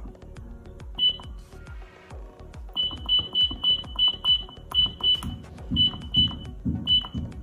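Arduino-based digital alarm clock beeping as its hour setting is stepped through: about a dozen short high beeps, one about a second in, then runs of about three a second. Background music with a steady beat underneath.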